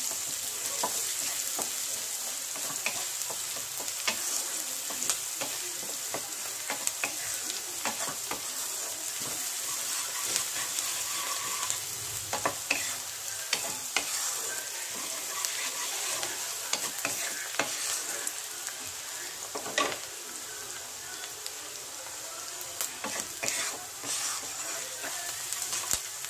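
Chopped onions sizzling in hot oil in a non-stick kadhai while a spatula stirs them, scraping and clicking against the pan. This is a steady sizzle, as the onions fry down until browned.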